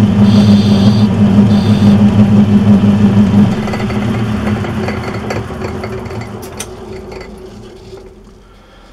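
Metal lathe running with a steady motor hum, then switched off about three and a half seconds in and winding down to a stop over several seconds.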